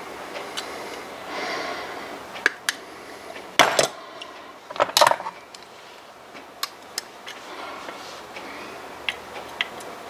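Scattered sharp metallic clicks and clinks of hand tools on a split pin in a Morris Minor handbrake assembly, as the pin's ends are snipped off with cutters and tools are handled and set down.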